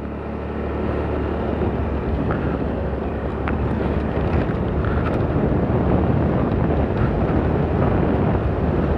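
Motorcycle on the move: engine and road noise mixed with wind buffeting the microphone, growing louder over the first second as the bike picks up speed, then running steadily.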